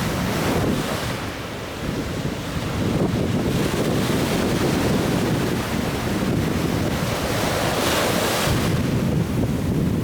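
Wind rumbling on the microphone over the steady wash of surf, with louder rushes about half a second in and again near the end.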